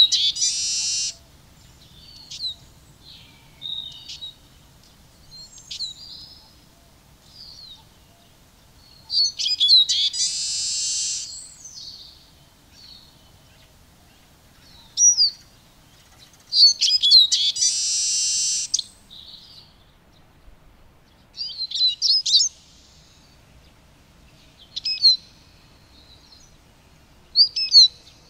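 Eurasian siskin singing: quick twittering phrases separated by pauses, three of them ending in a long wheezy buzz, with single short chirps in between.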